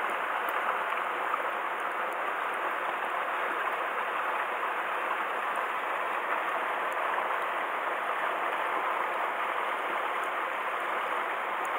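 Shallow mountain headwater stream running over stones: a steady rush of flowing water, even throughout.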